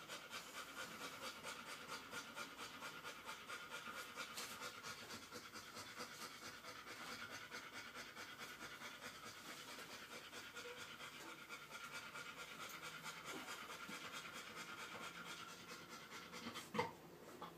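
An Airedale Terrier dam panting fast and steadily, as a bitch typically does in the hours after whelping. A single short knock near the end is the loudest sound.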